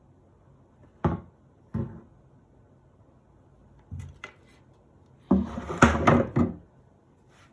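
Hard objects being handled and set down: two separate knocks, a couple of faint clicks, then a short clatter of several quick knocks near the end.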